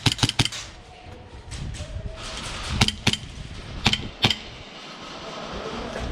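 Airsoft gunfire: sharp snapping shots in short groups, about three right at the start, two or three about three seconds in, and two more around four seconds in, over steady outdoor background noise.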